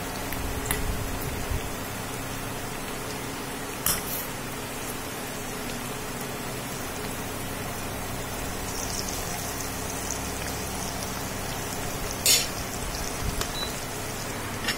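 Batter-coated teasel gourd slices sizzling steadily as they fry in hot oil in a pan. A metal slotted spatula clicks sharply against the pan twice, once a few seconds in and again near the end.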